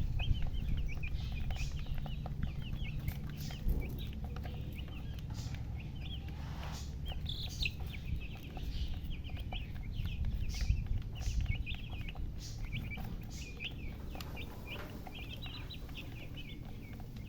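Domestic chicks peeping: many short, high-pitched chirps overlapping in quick succession, over a steady low rumble.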